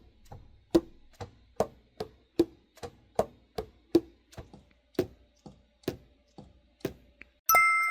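Martin tenor saxophone's keys being worked in a steady rhythm, the pads slapping shut on the tone holes with a short hollow pop, about two and a half a second. Near the end a sustained saxophone note begins.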